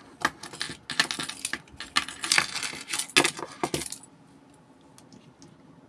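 A metal padlock clicking and rattling as it is handled and its shackle is tried against a plastic circuit breaker lockout whose hole is too small for it. The clicks and jangles come thick for about four seconds, then only a few faint ticks follow.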